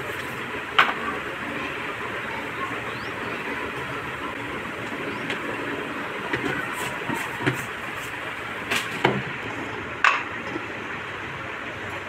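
Plastic spice containers handled and tapped while powdered spices are shaken onto a plastic plate, giving a few short sharp clicks and knocks, one about a second in and several between about seven and ten seconds in. Under them runs a steady background noise.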